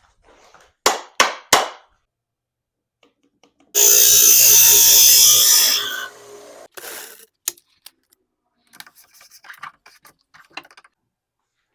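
Tool noise during a handlebar grip install. Three short loud bursts of noise come in quick succession. Then a loud, even rushing blast lasts about two seconds. After it come scattered light clicks and rubbing.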